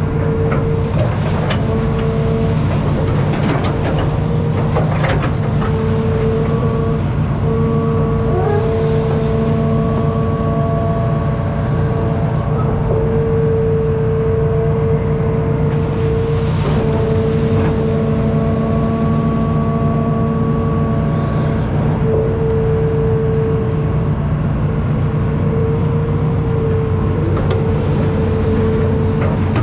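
Hitachi ZX210 amphibious excavator running: a steady diesel drone with a higher steady tone that breaks off and returns several times, and a few knocks, mostly in the first several seconds.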